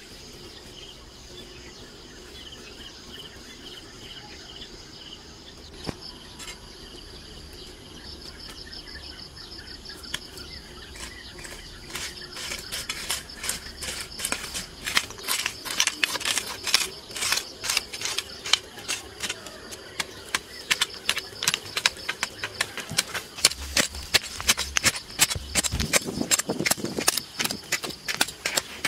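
Insects calling steadily, then from about twelve seconds in, hand hoes chopping into dry, hard, lumpy soil. The strikes come rapidly, several a second, and grow louder toward the end.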